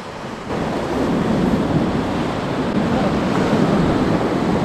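Sea surging and breaking against a rock ledge, with wind buffeting the microphone; the noise gets louder about half a second in.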